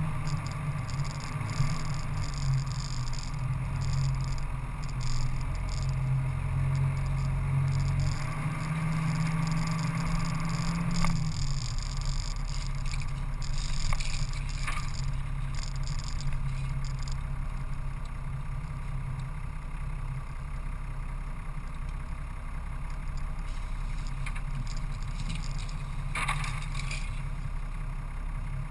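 A vehicle's engine running steadily while driving on a dirt track, with rumble from the road. About eleven seconds in the engine note drops, and a few short knocks come through from bumps.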